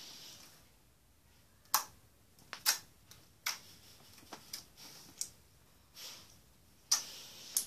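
Thick pink homemade slime being poked, folded and stretched by hand, letting out a string of sharp, irregular pops and clicks as trapped air bursts from it.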